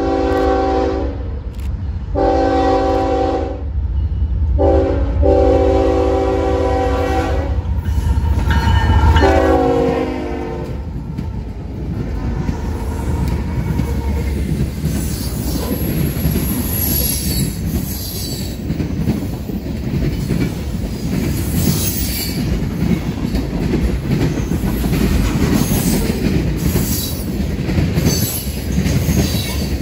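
Freight train locomotive's chime horn blowing several notes at once in a long, long, short, long grade-crossing pattern, the last blast dropping in pitch as the locomotive passes. Then the freight cars rumble and clatter past at close range, their wheels squealing.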